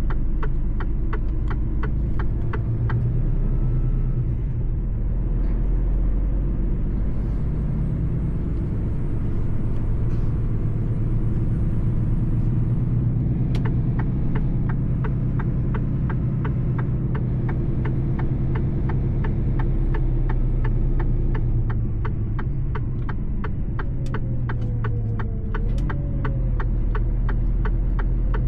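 Mercedes-Benz truck driving along, its engine running at a steady low rumble. Sharp regular ticks at about two a second come through during the first few seconds and again from about halfway to the end.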